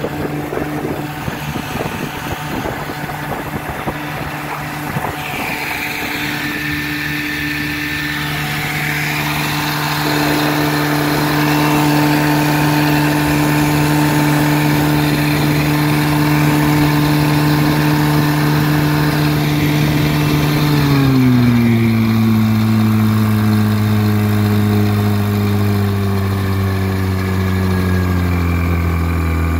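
1956 Gale Buccaneer 12 hp two-cylinder two-stroke outboard running under way at a steady speed. About two-thirds of the way through, it slows, its pitch dropping quickly and then sinking gradually lower.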